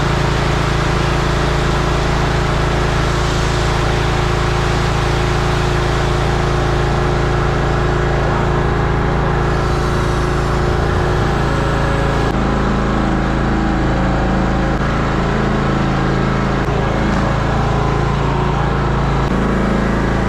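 Concrete mixer truck's engine running steadily, with a change in its tone about 12 seconds in.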